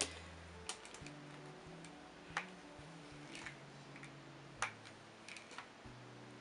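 Sharp, irregular plastic clicks as a flat iron and a hairbrush are handled together in the hair, over soft background music with low held notes.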